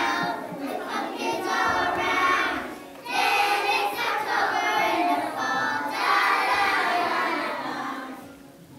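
A group of young children singing a song together, in phrases with a short break about three seconds in; the singing ends near the end.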